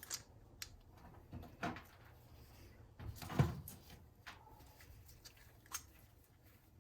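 Faint, scattered clicks and knocks of a small-engine carburetor being taken apart by hand as the bolt is removed from its bottom, with the loudest knock about three and a half seconds in.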